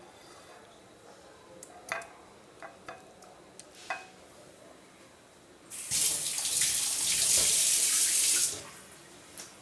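A few light clicks and knocks, then a kitchen tap runs for about three seconds, starting about six seconds in and shutting off abruptly.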